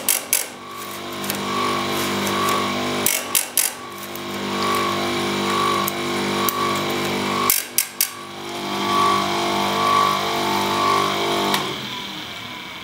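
Einhell GC CS 235 E chain sharpener's electric motor running steadily with its disc spinning, while chainsaw depth-gauge (raker) teeth are ground down one by one. Three times, about four seconds apart, comes a short burst of metal-on-grinding-wheel contact and clacking as the disc comes down on a tooth and the chain is moved on to the next one. The motor hum cuts off near the end.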